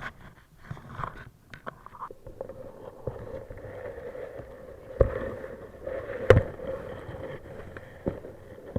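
Water noise with a steady hum, broken by sharp knocks, the loudest about five seconds and about six seconds in.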